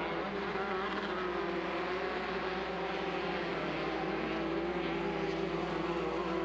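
Limited Buggy race buggies' 1600 cc Volkswagen-based engines running at speed, a steady engine note whose pitch wavers slightly up and down.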